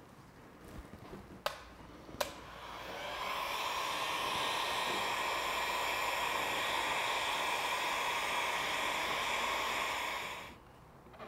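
Heat gun blowing hot air onto the phone's glass back cover to soften its adhesive: a steady rushing hiss that builds up over a second starting about two and a half seconds in and cuts out near the end. Two sharp clicks come just before it starts.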